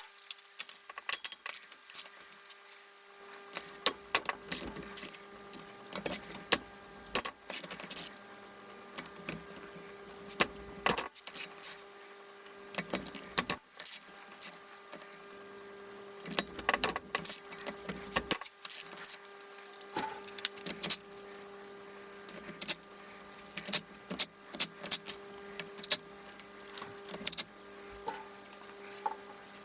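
Metal hand tools and engine parts clinking and tapping irregularly as a Honda CB450 engine is taken apart on the bench, over a steady faint hum.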